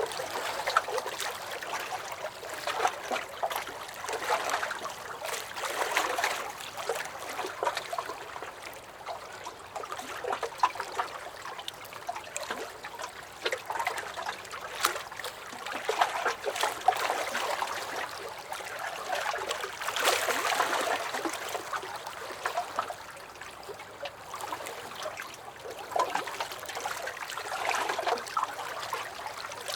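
Small lake waves lapping and slapping against a dock, with irregular splashes and trickling water that swell and ease every couple of seconds.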